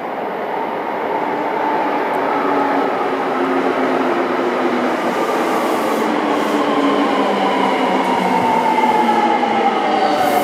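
Seibu 6000 series stainless-steel electric train running through an underground station without stopping. The rumble of its wheels on the rails builds as it approaches and passes at speed. A whine slowly falls in pitch over the last few seconds.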